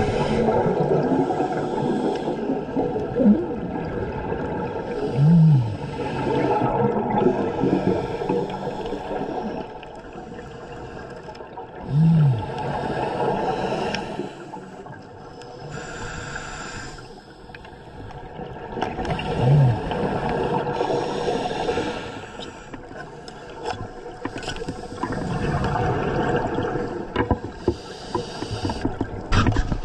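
Underwater sound of a scuba diver breathing through a regulator: rumbling bursts of exhaled bubbles every several seconds, with a brief hiss of inhalation and three short low hums that rise and fall.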